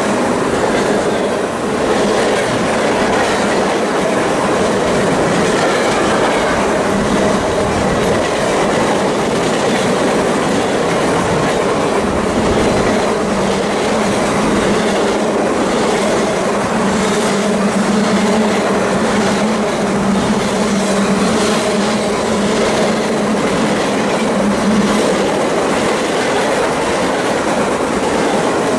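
Freight train of loaded flatcars rolling past close by: a steady rumble and rattle of steel wheels on rail, with a steady low hum through the middle and a run of regular clickety-clack from wheels crossing rail joints.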